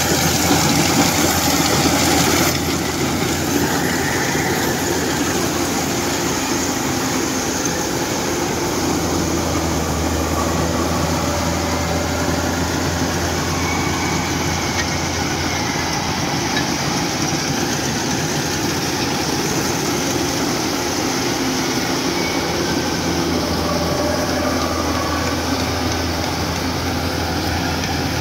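Tracked rice combine harvester running steadily while cutting and threshing rice: a continuous engine drone with a low hum, a little brighter and hissier for the first two seconds or so.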